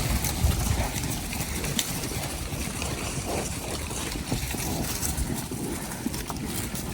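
Wind rumbling on the microphone, with scattered soft knocks and shuffles of cattle moving about close by.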